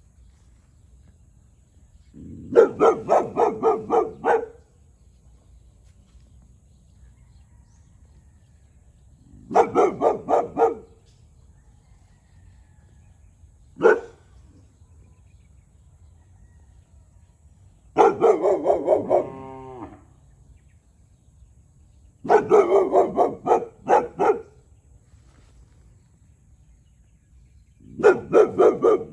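Young boxer dog barking in rapid volleys of several barks each, about four a second: five volleys a few seconds apart and a single bark between the second and third. It is territorial barking at a neighbouring cow.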